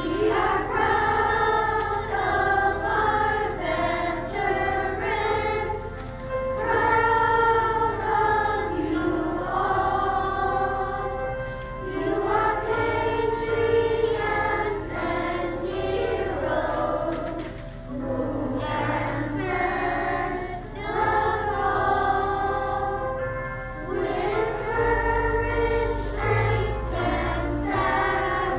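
Children's school choir singing a song in phrases over instrumental accompaniment.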